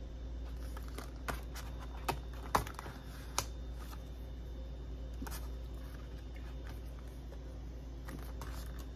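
Cardboard and paper packaging of a watch band being handled: light clicks, taps and rustling, with a cluster of sharper taps in the first few seconds and quieter handling after.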